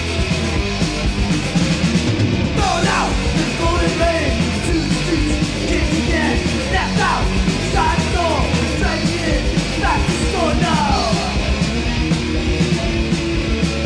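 Early-1980s American hardcore punk recording: loud distorted guitar, bass and drums, with shouted vocals coming in a couple of seconds in.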